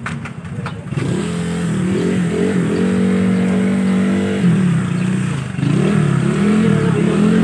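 A motorcycle engine revving up and down over and over, starting about a second in, with a few short clicks before it.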